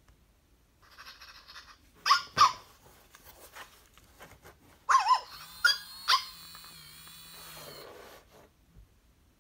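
FurReal Friends Teacup Pups electronic toy puppy responding to petting: after a brief whir, it gives two short, falling yips about two seconds in, then more yips and a long, wavering whimper from about five to eight seconds in, all from its small speaker.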